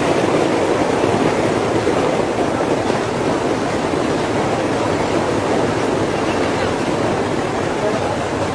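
Diesel-hauled passenger train running across a sea bridge: a steady, even rumble mixed with wind and surf noise.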